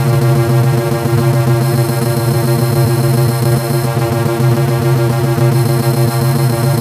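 Digitally edited car horn sound: one loud, buzzy, sustained tone held steady without a break.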